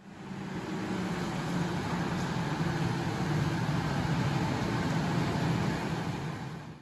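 Steady vehicle noise, a low engine hum under a broad rush, fading in at the start and fading out near the end.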